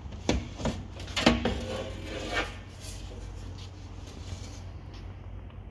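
Car door window glass being pulled up out of the door, rubbing and scraping against the door's rubber seals and frame, with a few knocks and a short squeak in the first two and a half seconds before it goes quieter.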